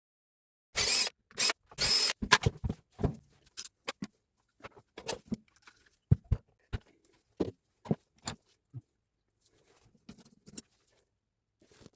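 Three short, loud bursts of noise about a second in, then a scattered string of knocks and clicks from handling tool parts.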